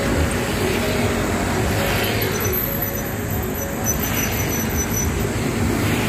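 Road traffic noise: a steady rush of cars on a nearby road, swelling as vehicles pass about two and four seconds in.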